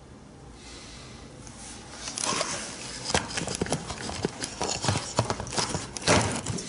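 Irregular sharp clicks and light knocks over a faint hiss, starting about two seconds in and coming several times a second without a steady beat.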